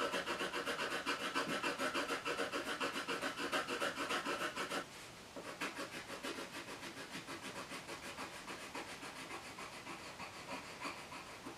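Colored pencil scribbling on paper: rapid back-and-forth shading strokes, about four a second. They pause briefly about five seconds in, then go on more lightly.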